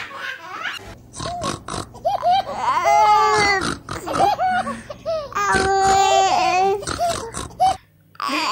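Baby laughing: short choppy giggles, then long high-pitched squealing laughs about three and six seconds in, cut off abruptly near the end.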